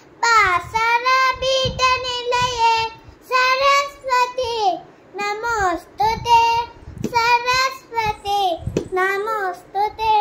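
A young girl chanting a sloka, a devotional verse, in a sing-song melody, in short held phrases with brief pauses between them.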